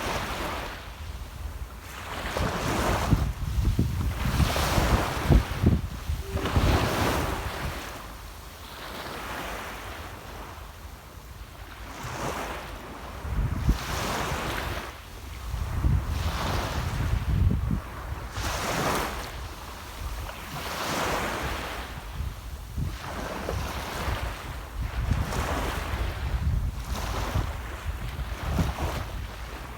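Small sea waves breaking and washing on the shore, one swell every couple of seconds, with a calmer lull partway through. Wind buffets the microphone with a low rumble at times.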